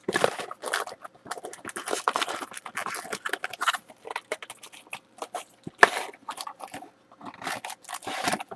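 Cardboard trading-card box and its foil-wrapped card packs rustling and crinkling as they are handled and pulled out, in irregular scrapes and crackles, with one sharper knock about six seconds in.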